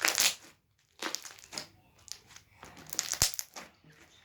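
Slime being squeezed and worked in the hands, giving short bursts of crackling and popping, with a sharp click about three seconds in.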